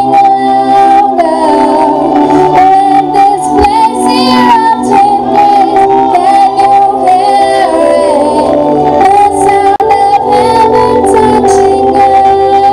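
A young girl singing a gospel song into a microphone, amplified through a PA, holding long notes over steady instrumental accompaniment.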